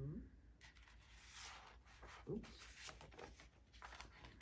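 Faint rustle of paper as a picture book's pages are turned and slid against each other, with a few small clicks.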